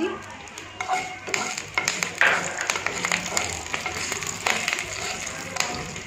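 Green chillies and curry leaves sizzling in hot oil with mustard seeds in a nonstick frying pan, with scattered crackles and pops. A wooden spatula stirs and scrapes them around the pan.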